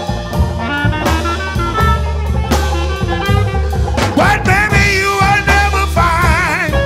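Background music: a song with a drum kit and a steady bass beat, and a wavering melody line that comes in about four seconds in.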